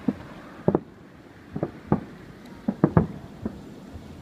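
Distant aerial firework shells bursting: an irregular run of about nine short, dull booms in four seconds, several of them in close pairs.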